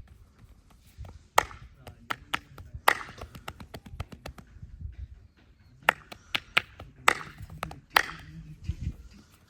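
Sharp hand strikes of a percussive massage, chops and slaps on the body, in two quick flurries: one about a second and a half in and another about six seconds in.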